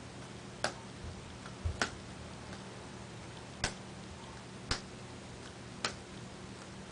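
A whole pickle smacking into a palm as it is caught after being flipped, short sharp slaps at uneven spacing, roughly once a second, over a faint steady hum.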